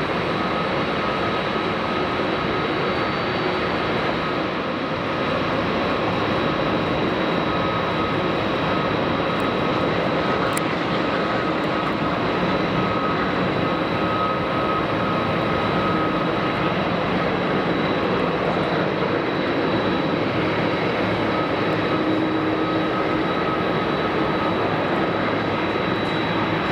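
Boeing 747-400ERF freighter's jet engines running at taxi power: a steady rumble with a steady high whine over it, growing slightly louder a few seconds in.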